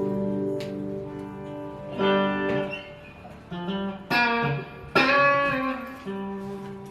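Guitar being played: ringing chords, with fresh strums about two, four and five seconds in.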